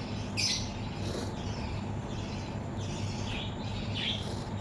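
Birds chirping in short high calls, about five scattered through, over a steady low background hum.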